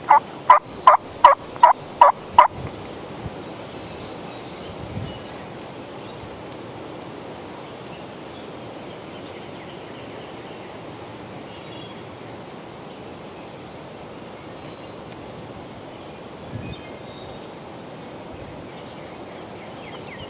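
Wild turkey calling: a run of seven loud, evenly spaced notes, about three a second, over the first two and a half seconds. After that there is only a faint, steady outdoor background.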